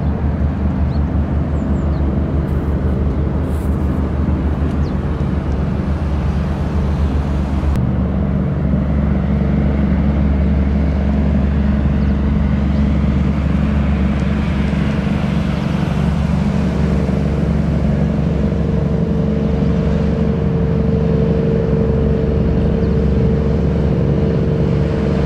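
Small harbour tug's diesel engine running steadily under way, a low drone with steady hum tones, over the rush of its bow wave and wake.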